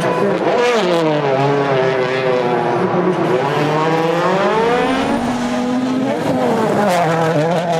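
Rally car's turbocharged four-cylinder engine at full attack, its pitch dropping and climbing as it shifts gears and comes on and off the throttle: a drop about a second in, a slow climb, another drop around five seconds, then a dip and a rise near the end.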